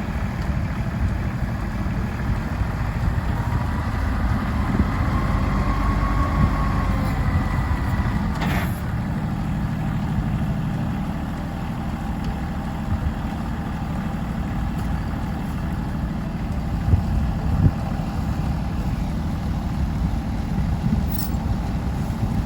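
Farm tractor engine running steadily, with a faint whine that rises and falls about four to eight seconds in and a single sharp click about eight and a half seconds in.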